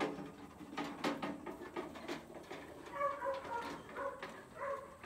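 Light clicking and rattling of a child's metal toy wagon as a goat pushes it over grass.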